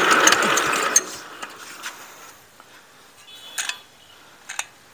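Kubota ER75 single-cylinder diesel turning over without firing, a clattering run with a click about three times a second that stops abruptly about a second in; a few faint clicks follow. The engine will not start, which the owner suspects is a fault in the injector nozzle.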